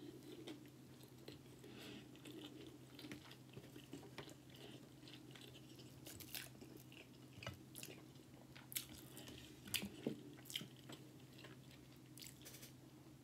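Close-miked, faint chewing and biting of a spicy crab sushi roll, with moist, slightly crunchy mouth sounds. A few sharp clicks and taps come in the second half.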